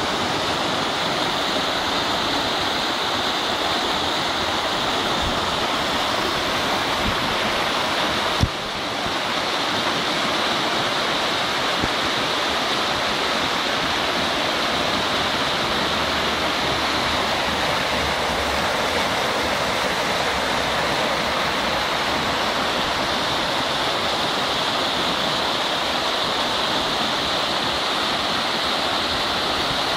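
Fast spring river water rushing and churning white over a driftwood snag and shallow rapids, a steady rush with no let-up. One brief knock about eight seconds in.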